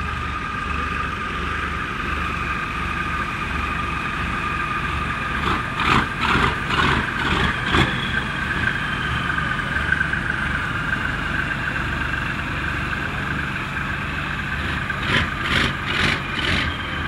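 Motor torpedo boat's engines idling, with a steady pulsing drone and a whine, as exhaust and cooling water spurt from the hull-side outlets. The engine note spurts into a string of short louder bursts about six seconds in, and again near the end.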